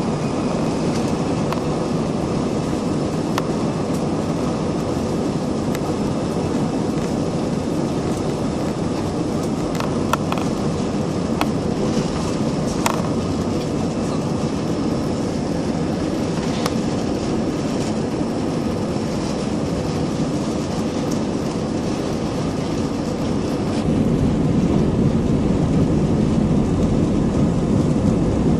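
Aircraft cabin noise heard from a passenger seat: the steady noise of the engines and airflow, with a faint steady hum. It grows louder and deeper near the end.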